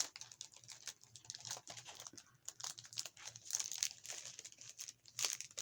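Crinkly packaging being handled in irregular crackles as a small craft kit's contents are pushed back into it.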